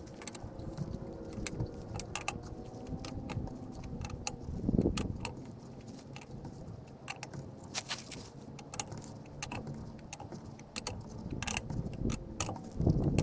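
Light metallic clicks and clinks from hand-tool work on the truck, coming at irregular intervals, with a duller knock about five seconds in.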